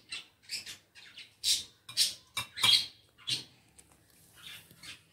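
Lemon juice poured from a small steel bowl into a glass jar of water: a string of short, irregular splashing and scraping sounds.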